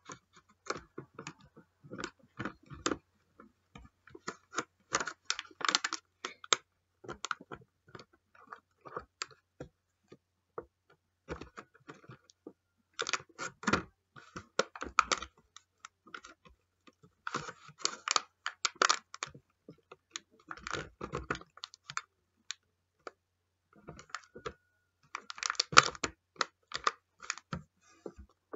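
Slime being squeezed and poked by hand, giving irregular clusters of sticky clicks, pops and crackles with short pauses between handfuls.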